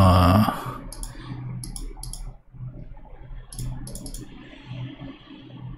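Computer mouse clicks: a few sharp clicks in small clusters, about a second in, around two seconds in and again near four seconds, over a faint low steady hum.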